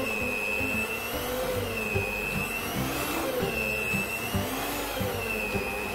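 Electric hand mixer running with dough hooks, kneading stiff bread dough, a steady motor whine that wavers up and down in pitch about once a second. The dough is at the end of kneading, smooth and elastic.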